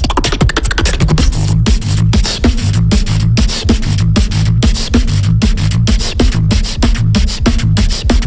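Beatboxing into a handheld microphone: fast, even percussive snare and click hits, about four or five a second, over a repeating deep bass pattern.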